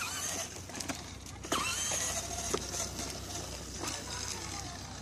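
Battery-powered ride-on toy car driving on asphalt: its electric motor and gearbox hum steadily while the hard plastic wheels rumble over the pavement, with a few sharp clicks as it bumps along.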